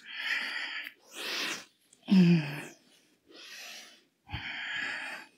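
A woman breathing hard close to a headset microphone during a strenuous exercise, with five heavy breaths in and out. The loudest, about two seconds in, is a voiced sigh that falls in pitch.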